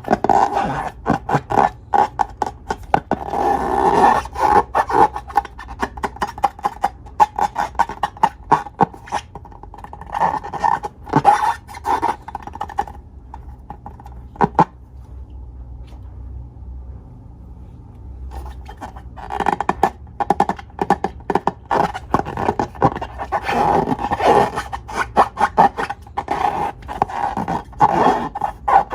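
Sticky slime being squeezed and worked by hand: rapid clicking and crackling squelches that thin out to a few scattered clicks midway and then come thick again.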